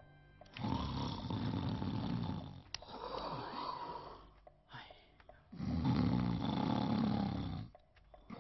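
A man snoring in deep sleep: two long snores, each about three seconds, with a quieter breath between them.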